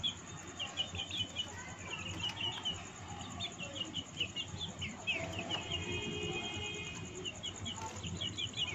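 Birds chirping: quick runs of short, high chirps, with a steadier held note for about a second and a half just past the middle.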